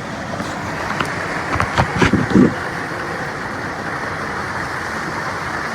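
Steady rush of waterfall and creek water, with a few short knocks and thumps a second or two in.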